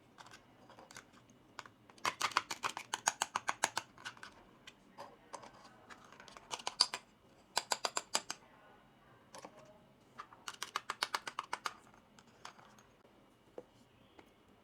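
Small plastic toy pieces being handled: several bursts of rapid light clicking, about ten clicks a second, with single clicks between them.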